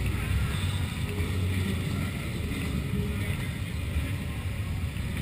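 Cruiser motorcycle engine running at low speed, heard from on board, a steady low sound with wind noise on the microphone.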